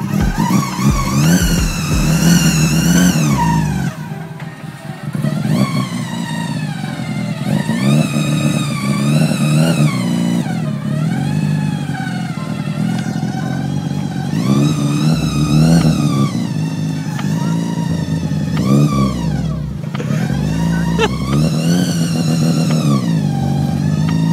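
A Mazda 13B rotary engine swapped into a Nissan Skyline R32 is being revved again and again while the car stands still. The pitch climbs and falls every couple of seconds.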